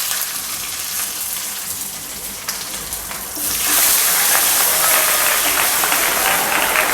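Curry leaves and mustard seeds frying in hot coconut oil for a tempering, a loud steady sizzle with dense crackling. It swells louder about three and a half seconds in.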